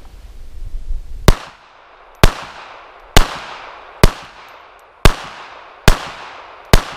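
Beretta 3032 Tomcat .32 ACP pistol firing seven shots, about one a second, each trailing off in echo. The roughly 25-year-old ammunition fires and cycles without a hitch.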